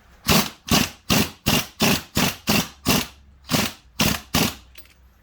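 Spring compressor's threaded rod being tightened down on a coil spring, about ten short, loud strokes a little over two a second.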